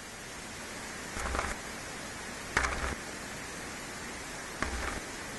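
Bible pages being turned: three short paper rustles over a steady hiss, the middle one the sharpest.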